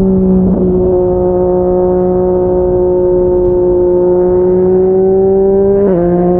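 Yamaha MT-09's inline-three engine running at steady revs through a Yoshimura R55 slip-on exhaust, with the pitch stepping down once near the end as it shifts up a gear.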